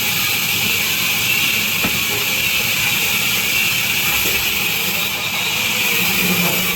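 Industrial vertical band saw running with a steady high hiss.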